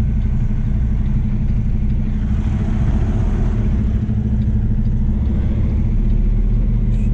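Semi truck's diesel engine running steadily at low revs, heard from inside the cab as the tractor-trailer reverses slowly. A soft rushing noise swells and fades around the middle.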